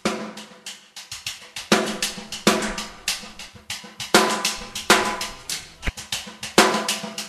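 Background music with a steady drum-kit beat, strong snare and cymbal hits recurring evenly over a sustained bass line.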